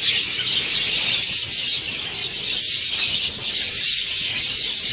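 A colony of budgerigars chattering and chirping all at once, a steady high-pitched chatter.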